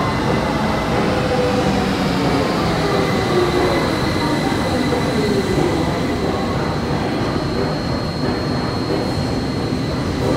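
Siemens VAL 208 NG2 rubber-tyred automatic metro train running through the station behind the platform screen doors, a steady rumble of tyres and running gear with a thin high whine over it.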